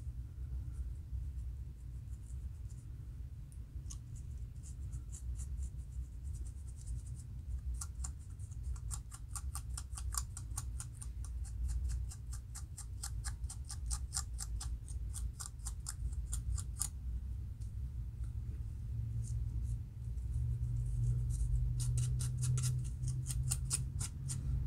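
Plastic comb and fingernails scratching a dry, flaky scalp between locs, lifting dandruff flakes. The scratching comes in runs of quick strokes, several a second, with short pauses between. A steady low hum sits underneath.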